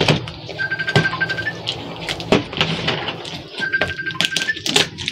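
Hands unwrapping a heavily wrapped package, with scattered crinkles, clicks and knocks of wrapping and box. A faint high steady tone sounds twice in the background.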